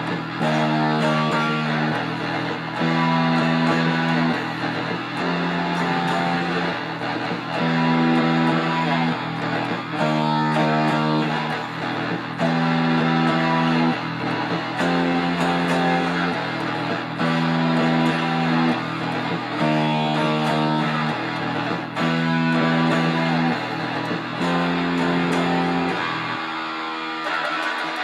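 Electric guitar played as a tone demo, a repeating chord pattern with the chord changing about once a second; near the end the low notes drop out.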